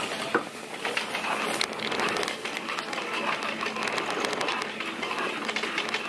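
A rickety shopping cart rattling steadily as it is pushed along, heard from a camera riding inside the cart; the rattle is the sign of a worn, "terrible" cart.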